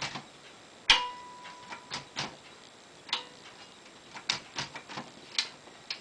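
1968 Commodore 2200 portable manual typewriter's mechanism giving scattered, irregular clicks and clacks as its keys and levers are pressed, with a short metallic ring after the loudest clack about a second in.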